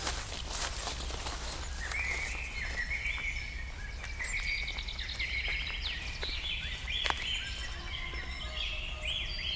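Outdoor ambience sound effect: a steady background haze with scattered clicks, and birds chirping in short repeated calls from about two seconds in. The sound cuts off suddenly at the end.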